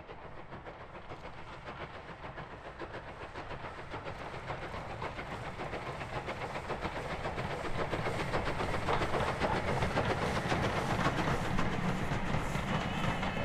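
Steam train approaching and growing steadily louder, with a quick, even rhythmic beat.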